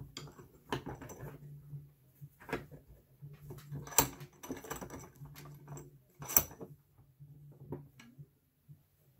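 Hand file rasping on the tip of a steel screwdriver clamped in a bench vise, in short separate strokes, sharpening it into a scraping edge. Two sharp metallic clicks, about four seconds in and again about six and a half seconds in, are the loudest sounds, over a low steady hum.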